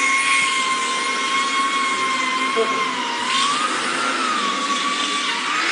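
Semi-automatic book sewing machine running: steady machine noise with a whine that holds one pitch, then wavers down and up about three to four seconds in.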